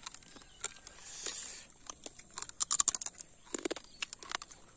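Cooked crab shell cracking and crunching between the teeth as it is eaten by hand: a run of sharp, irregular clicks and crunches, loudest about two and a half to three seconds in.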